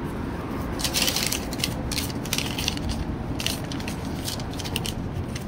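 Rustling and crinkling of belongings being gathered up by hand (fabric, plastic and cardboard), in irregular bursts with small knocks as the phone is jostled.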